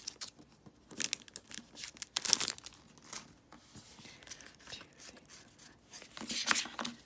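A Pokémon booster pack's foil wrapper being torn open and crinkled, in several short rustling bursts.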